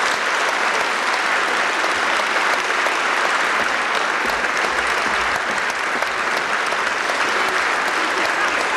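Concert audience applauding steadily, a dense, even clapping from a full hall.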